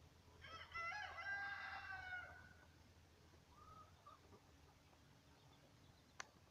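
A rooster crows once, a call about two seconds long starting about half a second in. A short, faint chirp follows a little later, and there is a single sharp click near the end.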